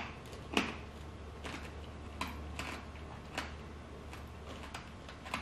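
A hard candy being bitten and crunched between the teeth: one sharp crack about half a second in, then scattered fainter cracks and clicks as it is chewed.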